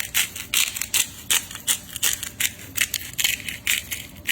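Salt being dispensed over the dish: a regular run of short scratchy strokes, about three a second.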